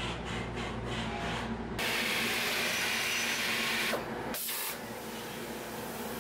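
Pipe-factory machinery running, a steady mechanical noise. It pulses about three times a second in the first couple of seconds, then changes abruptly twice into a steadier hiss.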